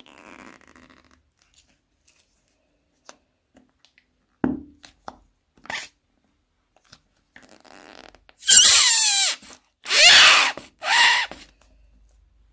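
Slime being squished, with scattered soft sticky clicks and a thump, then three loud wet, fart-like squelches of air forced out of it near the end. The first squelch has squeaks falling in pitch.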